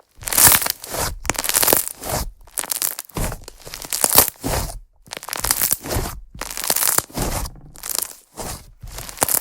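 Slime being pressed and worked by hand, crackling and squishing in repeated strokes about once a second.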